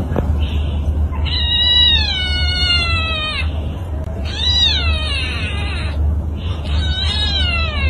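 Small calico cat yowling three times at another cat in a face-off. The calls are long and drawn out: the first sinks in pitch at its end, the second rises and then falls, and the third is shorter.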